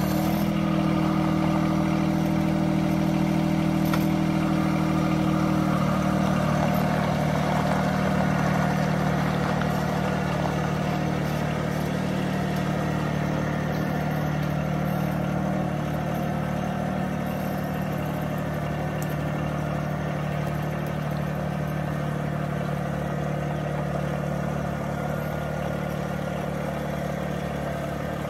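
John Deere 1023E compact tractor's three-cylinder diesel engine running steadily as the tractor drives off, growing gradually fainter as it moves away.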